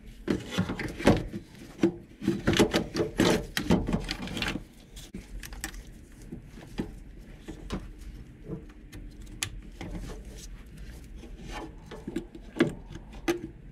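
Plastic intake manifold being worked into place against the engine, with dense scraping, rubbing and knocking in the first four or five seconds, then scattered light clicks and knocks as it settles into position.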